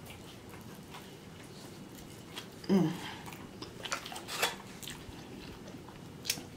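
Close-miked chewing of a fried, shrimp-and-cheese stuffed jalapeño dipped in ranch, with scattered wet mouth clicks. A short hum comes about a third of the way in.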